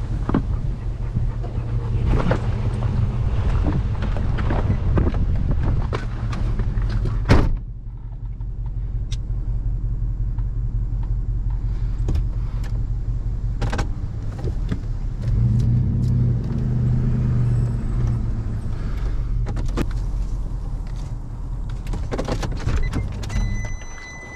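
Nissan pickup truck driving on a paved road, a steady engine and road-noise rumble. For the first seven seconds wind noise is mixed in, heard from outside over the truck bed; after that it is heard inside the cab. The engine note rises for a few seconds in the middle. A steady electronic beep sounds near the end.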